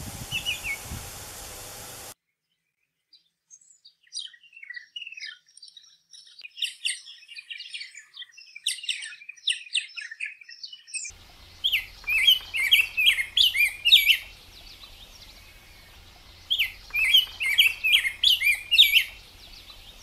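Surf hiss with a few short high calls, then after a short gap a run of purple martin chirps and gurgles, then a rose-breasted grosbeak singing warbled phrases in two bouts.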